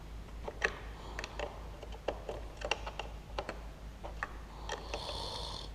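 Spanner tightening the clamp on a car battery's positive terminal: scattered light metallic clicks and ticks as the spanner is worked. A brief hiss about five seconds in.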